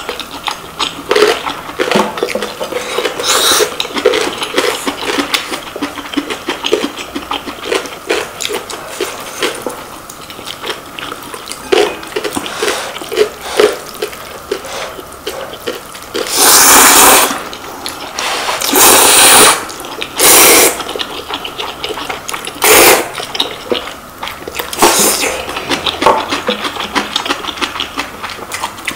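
Close-miked eating of instant ramen noodles: steady wet chewing and mouth clicks, broken past the middle by several long, loud noodle slurps and a couple of shorter ones after.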